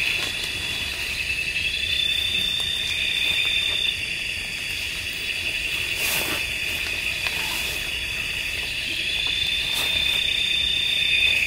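Night insects in tropical forest chirring in a steady high-pitched drone, with a higher note that slides up and then holds for about two seconds, twice. A faint click or rustle about six seconds in.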